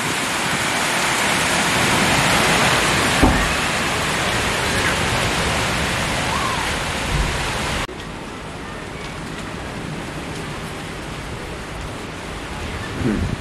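Monsoon storm: strong wind and rain thrashing through trees, with a few low thumps of gusts hitting the microphone. The noise drops suddenly to a quieter, steady rain about eight seconds in.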